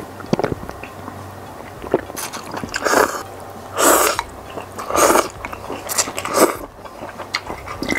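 A person slurping thin noodles and spicy broth, with wet chewing and small mouth clicks. Four loud slurps come about a second apart in the second half.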